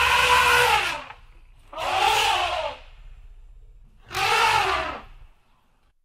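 Elephant trumpeting: three blasts, each about a second long and about two seconds apart, with a brassy pitch that rises and then falls.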